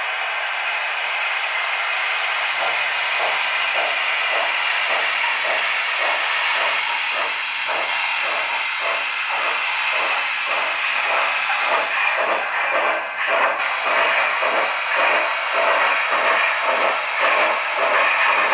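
Steam sounds from a Loksound V5 sound decoder in an HO-scale Southern Pacific Cab Forward model locomotive: a steady hiss, joined about two and a half seconds in by exhaust chuffs at about two a second, picking up slightly as the model gets under way.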